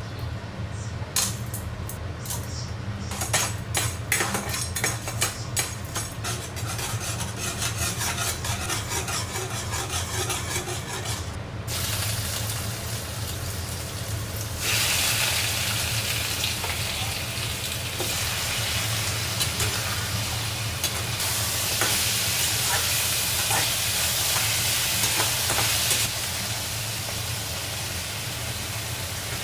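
Food frying in a pan, sizzling, with a spatula stirring and tapping. Clicks and taps fill the first part, then the sizzle swells to a louder steady hiss about halfway through.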